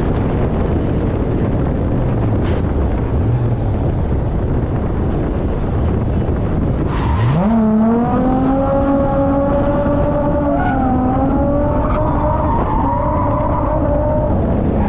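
Holden VY Commodore Calais engine running hard under a dense haze of tyre and wind noise. About seven seconds in, the revs climb sharply and are then held high with small rises and dips, as the car is driven in a drift.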